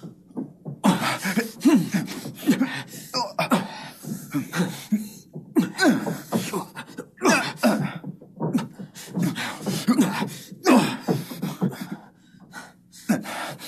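Film fistfight: a rapid series of punch and scuffle impacts mixed with men's grunts and shouts.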